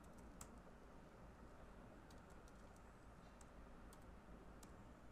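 Faint, scattered keystrokes on a computer keyboard, a few irregular clicks over a low steady hiss.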